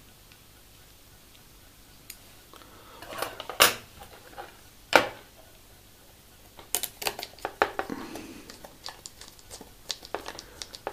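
Screws and small model frame parts clicking and clinking as they are handled and fitted together. A few sharp clicks come first, then a busy run of small clicks in the second half.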